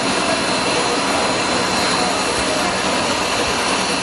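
Jet airliner engines running: a steady rushing noise with a faint, constant high whine.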